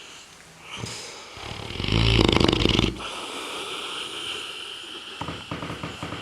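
A sleeping Neapolitan Mastiff snoring. About two seconds in comes one loud, rattling snore lasting about a second, then a wheezing breath with a steady high hiss, and a softer fluttering rattle near the end.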